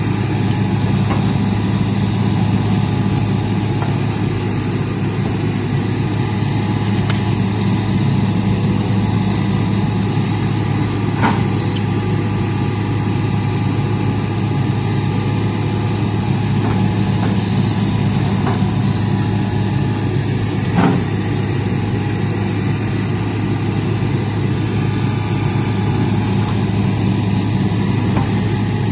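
Hitachi excavator's diesel engine running steadily, with a few sharp cracks scattered through.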